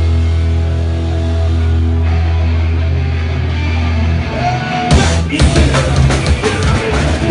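Punk rock band playing live: the guitars and bass hold a steady ringing chord with no drums, then about five seconds in the drums and the full band crash in together.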